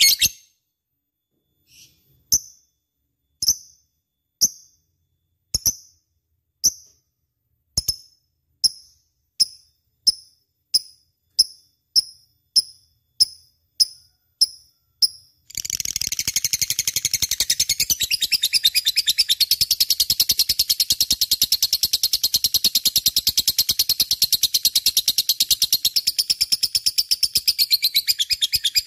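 Lovebird calling: single short, high chirps at first, coming faster and faster, then about halfway through breaking into a continuous rapid chatter that runs on loudly.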